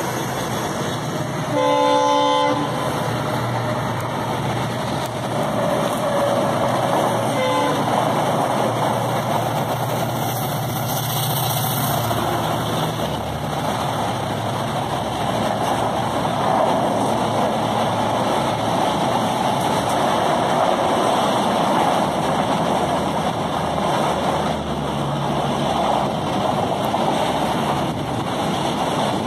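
A WAP-7 electric locomotive's horn sounds once, a short chord about two seconds in, as the train approaches; then a long passenger train passes close by, its coaches giving a steady rumble and rattle of wheels on the rails.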